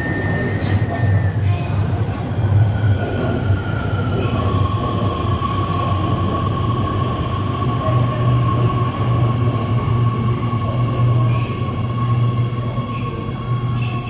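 Metro train pulling into an underground station and slowing along the platform, with a steady low rumble and a high whine. The whine drops in pitch in two steps over the first few seconds, then holds at one pitch.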